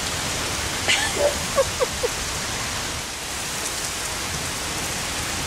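Heavy thunderstorm rain pouring steadily, a dense even hiss. A click and a few short chirps come about one to two seconds in.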